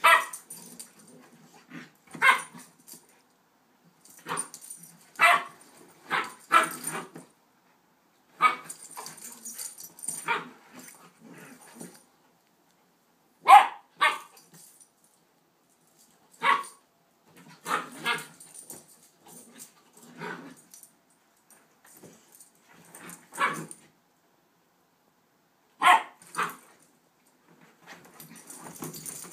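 A puppy and a young dog play-fighting: short, sharp barks at irregular intervals, singly or in quick pairs, with quieter sounds between.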